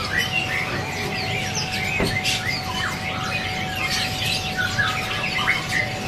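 Many caged songbirds chirping and trilling over one another in a dense mixed chorus, with a thin steady tone held from about two seconds in.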